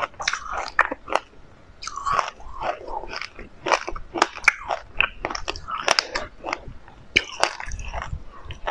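A mouthful of black and white sesame seeds being chewed: many irregular, crisp crunches and clicks.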